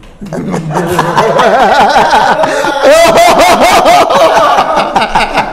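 Three men laughing loudly together, their laughs overlapping, starting about half a second in.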